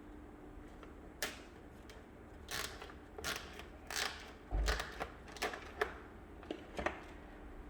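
Plastic wrapping on a new tablet being pulled off and crinkled, in a series of short rustles, with a soft thump about halfway through.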